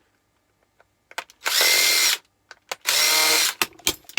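Cordless drill-driver run in two short bursts, each about half a second, backing out the screws on the back of a fuse switch, with a few small clicks between them.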